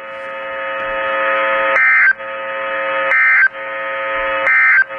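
Weather-radio broadcast between alerts: three short bursts of EAS/SAME data screech, about a second and a half apart, which are the end-of-message codes closing a severe thunderstorm watch. Between the bursts a steady buzzing tone swells louder each time.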